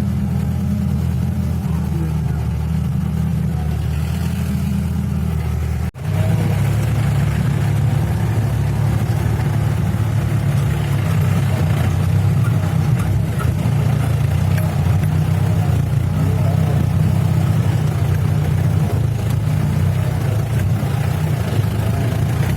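A motor vehicle's engine running with a steady low rumble, with a brief sudden break about six seconds in.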